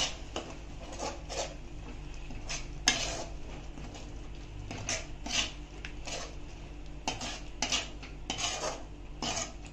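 A metal slotted spoon stirring thick spinach gravy in a metal pot, scraping and clinking against the sides and bottom in repeated strokes, about one or two a second.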